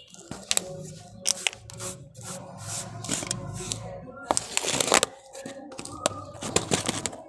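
Hands working loose potting mix into thin disposable plastic cups and a plastic tray: irregular crinkling, rustling and clicking of the thin plastic, with scattered scraping of the mix. The loudest crackles come a little past the middle.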